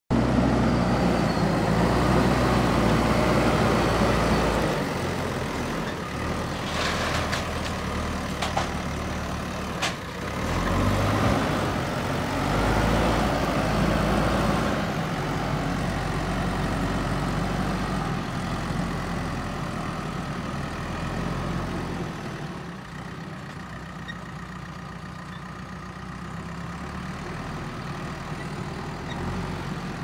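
JCB 3DX backhoe loader's diesel engine running under work, with a few sharp knocks a little before the middle; the engine swells again mid-way and grows fainter in the last third as the machine moves away.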